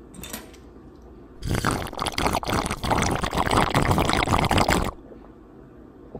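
A person drinking from a glass close to the microphone: loud liquid slurping and swallowing that starts about a second and a half in and stops sharply after about three and a half seconds.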